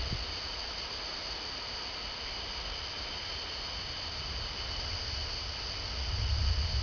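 Distant thunder rumbling low, swelling about six seconds in, over a steady high-pitched chorus of night insects.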